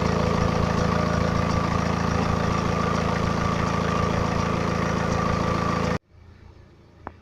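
BMW 318d's N47 four-cylinder diesel idling cold, running steadily with rapid ticking and a high whine; the owner asks whether timing chain noise can be heard in it. About six seconds in the sound cuts off abruptly to a much quieter recording, with one brief faint tone near the end.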